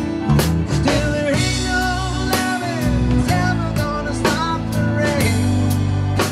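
Live rock band playing an instrumental passage: drum kit keeping a steady beat under bass, guitars and keyboards, with a lead line sliding between notes.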